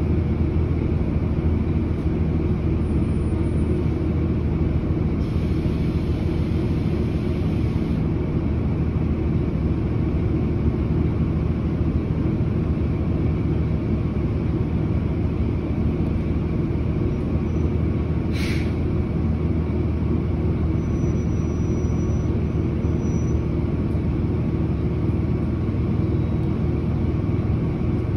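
Transit bus engine idling steadily, heard from inside the cabin while the bus stands at a red light. One brief, sharp hiss cuts in about two-thirds of the way through.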